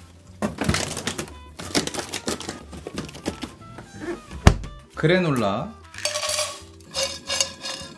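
Plastic clatter of a freezer drawer being loaded, then a loud thump as the freezer door shuts about four and a half seconds in. Near the end, granola rattles out of a pouch into a frying pan.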